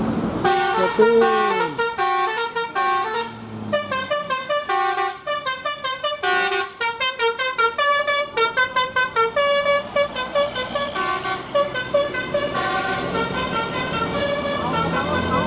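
Basuri telolet bus horn, a set of roof-mounted trumpet horns, playing a fast melody of short stepped notes. A few sliding notes sound in the first couple of seconds, and there is a short pause about four seconds in before the tune runs on.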